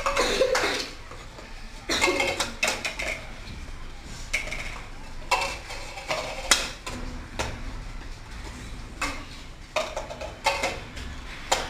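Light plastic cups being flipped and set down on a table: a string of short clacks and taps at uneven intervals.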